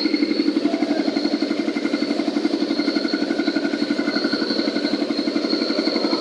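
Cement concrete mixer machine's engine running steadily, with a rapid, even pulsing beat.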